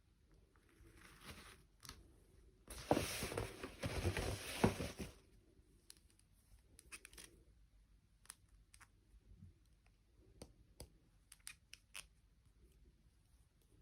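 Toy packaging being handled: about three seconds in, a couple of seconds of loud rustling and tearing, then scattered light clicks and taps.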